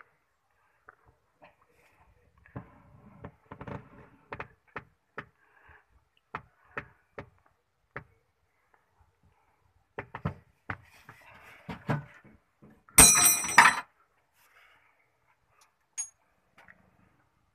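Scattered light metal knocks and clicks from hand work on an auto-rickshaw's greased steering-column bearing, with one louder, ringing metallic clatter lasting under a second about three-quarters of the way through.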